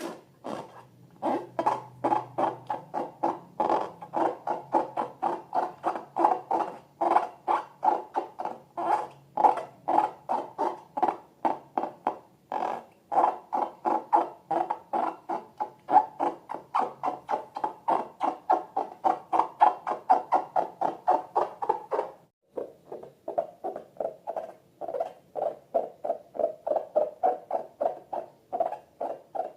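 Rapid, regular squeaky squelches from slime and rubber balloons being worked by hand, about three or four a second, with a short break about 22 seconds in.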